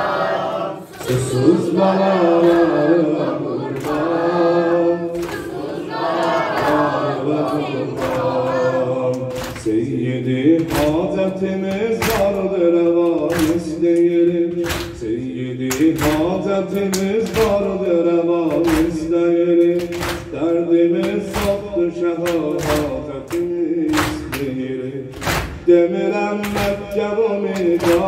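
Men and boys chanting a Shia mourning lament (noha) together, with rhythmic chest-beating (matam), about one beat a second, clearest from about ten seconds in.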